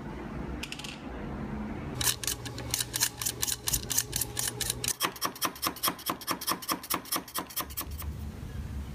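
A snap-off utility knife blade shaving wood from a pencil by hand, a quick, even run of short scraping strokes at about five a second. The strokes start about two seconds in and stop shortly before the end.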